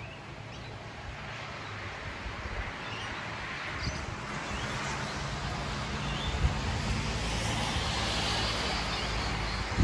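Traffic on a wet road: tyre hiss and a low engine hum growing steadily louder as a vehicle approaches, over the steady sound of rain.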